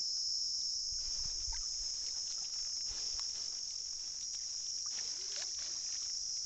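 A steady, high-pitched drone of insects, with faint splashes, drips and clicks scattered through the middle as a fishing net is hauled by hand out of the river into a wooden boat.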